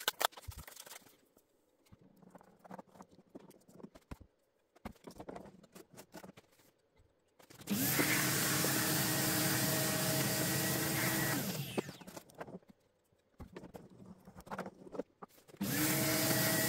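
Vacuum cleaner sucking through a ballast-vacuum nozzle, hoovering excess loose model-railway ballast off the track. It starts about seven and a half seconds in, runs steadily with a whine for about four seconds, stops, and starts again near the end. Before that there are only light scattered clicks and rattles of handling.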